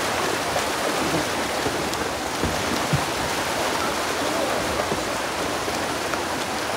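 Dense, steady splashing of a mass of farmed coho salmon thrashing at the surface as they are crowded together in a net pen at harvest.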